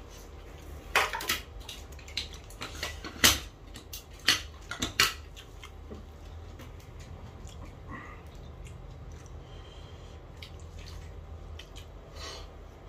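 Hand mixing rice on a large metal plate: a string of sharp clinks and scrapes against the plate in the first five seconds, then softer, quieter handling.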